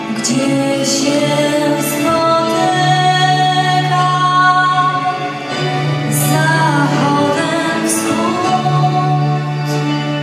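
A young woman singing long held notes over a sustained instrumental accompaniment, one note wavering with vibrato about two-thirds of the way through.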